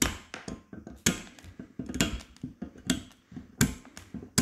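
Side cutters snipping through nylon cable ties flush at the head, one tie after another: a series of sharp snaps, about one a second.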